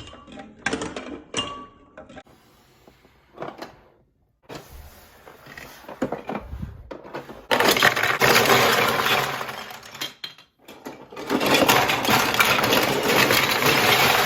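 Hard plastic marble run pieces and marbles clattering: separate clicks at first, then two long stretches of dense, continuous rattling, the second running a few seconds.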